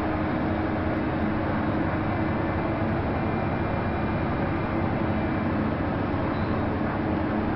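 Jelcz 120M city bus driving at a steady speed, heard from inside the passenger cabin: an even diesel engine drone mixed with road noise.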